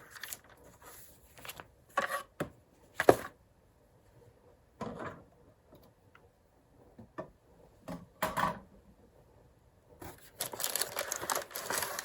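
Cardboard box and packaging being handled and rummaged through: scattered knocks and taps, a few short rustles, and a longer stretch of rustling near the end.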